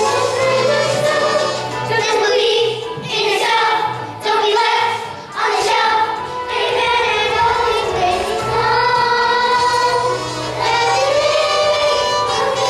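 A group of children singing a song together over instrumental accompaniment, with sustained low notes underneath.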